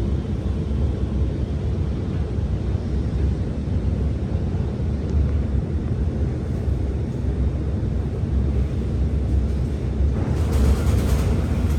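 Steady low rumble of an Alstom R151 metro train running on the viaduct, with a louder burst of hissing noise near the end.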